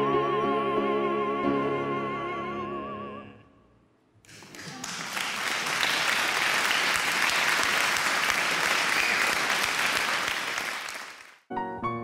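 A soprano and a tenor hold the final note of an Italian opera duet together with piano accompaniment, both voices with wide vibrato, ending about three seconds in. After a short gap, audience applause runs for about seven seconds and cuts off, and piano notes begin at the very end.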